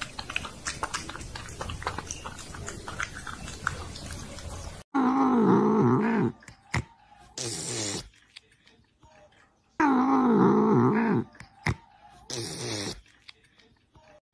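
Cat lapping water in quick, clicking laps for the first few seconds. Then, after a sudden change, a cat gives loud, low, drawn-out meows, a 'wang' sound: two long calls about a second each and shorter ones between.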